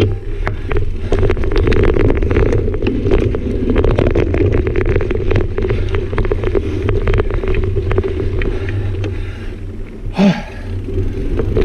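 Mountain bike riding fast down a dirt singletrack: a steady low rumble of knobby tyres on the trail, with a constant clatter and rattle of the bike over bumps. It eases briefly near the end, with one sharp knock.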